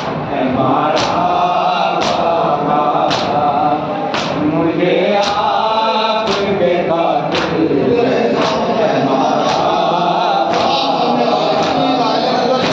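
A noha (Shia lament) chanted by male voices over a microphone, with the crowd's matam: chest-beating slaps in unison, about one a second, keeping the beat.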